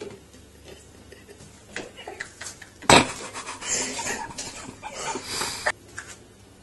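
Kittens leaping at a wallpapered wall, making scattered scrapes and light knocks, with one sharp loud thump about three seconds in.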